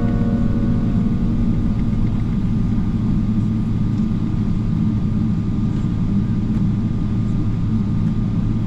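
Cabin noise of a Boeing 777 taxiing, heard from inside the passenger cabin: a steady low rumble with a faint steady whine above it.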